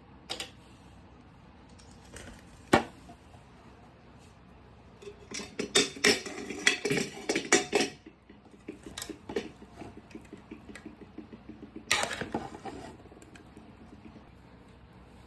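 Utensils clinking and scraping against dishes and a cooking pot, as biryani is handled: a single sharp knock, then a dense run of clatter and scraping, and a shorter burst later on.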